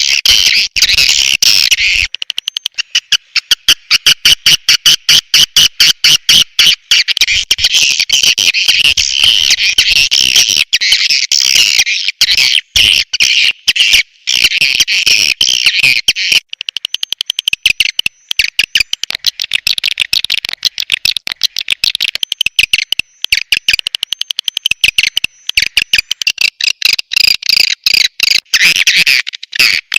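Swiftlet call track: edible-nest swiftlets chattering in a rapid, unbroken stream of sharp high chirps and clicks, many to the second. It is the call sound played to lure swiftlets into a swiftlet house.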